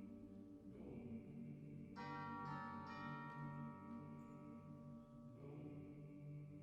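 Choir singing soft sustained chords, the harmony shifting about a second in and a brighter, fuller chord entering about two seconds in.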